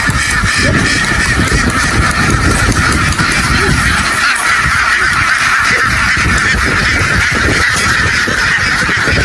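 A large flock of ducks calling all at once: a dense, continuous din of many overlapping quacks with no pause.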